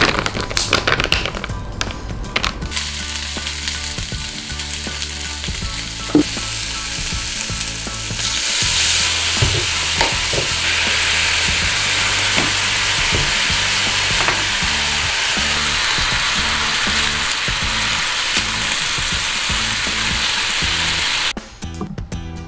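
Pork-loin rolls wrapped around king oyster mushrooms and asparagus sizzling as they fry in a frying pan. The sizzling grows louder about eight seconds in and cuts off suddenly near the end.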